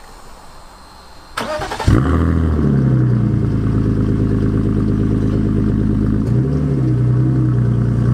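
BMW E46 coupe engine cranking briefly on the starter and catching almost at once, then running at a steady idle from its twin exhaust tips, with a short rise and fall in revs a few seconds after it fires.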